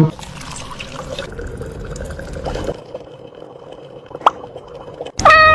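Liquid trickling and dripping, with one clear drip about four seconds in. Near the end a loud, held pitched note begins.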